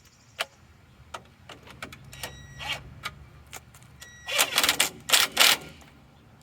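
Metal tools working on a truck's tie rod fastener: scattered sharp clicks and clanks, then several loud rattling bursts between about four and five and a half seconds in.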